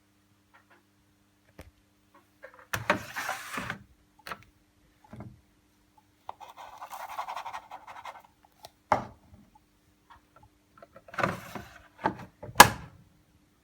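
Handling of a front-loading washing machine: a string of knocks, thunks and sharp clicks with a few rustling, sliding scrapes, over a faint steady hum. The loudest is a sharp click near the end.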